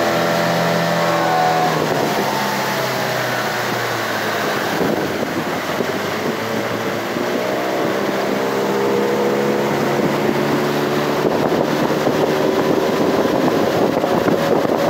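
Small boat's outboard motor running underway, its pitch sinking and rising several times as the engine speed changes.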